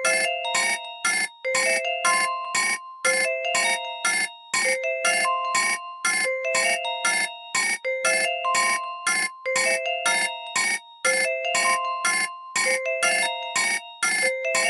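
Nokia 1616 ringtone playing: a synthesized melody of short staccato notes, about five a second, in a phrase that repeats every couple of seconds.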